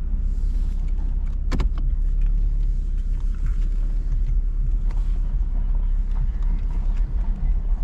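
2017 Chevrolet Camaro's 3.6-litre V6 idling steadily on fresh oil just after an oil change, with a short click about one and a half seconds in.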